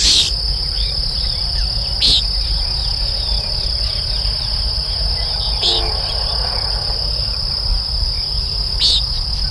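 A steady high-pitched insect chorus, with three short nasal calls about three seconds apart from a displaying common nighthawk giving its peent call.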